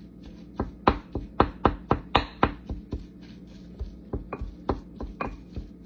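Wooden spoon mashing sardines in a glass bowl, knocking against the glass: a quick run of taps, about four a second, for the first couple of seconds, then scattered taps.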